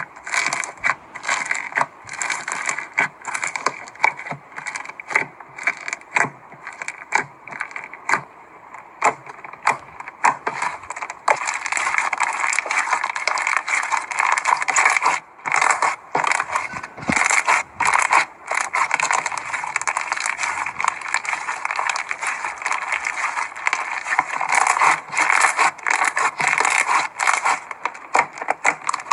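Slime being squeezed and kneaded by hand, making a dense run of small clicks, pops and crackles. They are sparser over roughly the first ten seconds and then nearly continuous.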